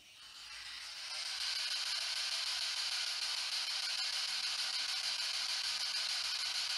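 Ghost box radio giving out a steady hiss of static and white noise, swelling in over the first second or so and then holding level.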